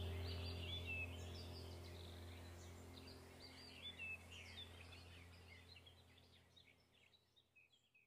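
Many birds chirping over a low steady hum, the whole sound fading out slowly to silence.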